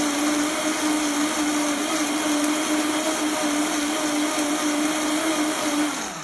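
Vitamix blender running at high speed, a loud steady motor whine with the rush of liquid churning in the jar. Near the end it is switched off, and the pitch falls as the motor spins down.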